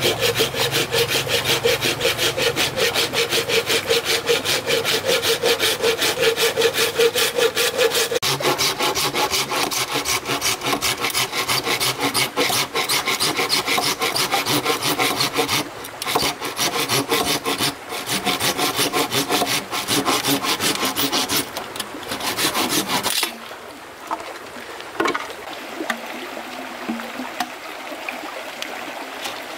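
A saw cutting wood with fast, regular back-and-forth strokes, with two brief breaks, stopping abruptly about 23 seconds in. After that only a faint trickle of a stream remains.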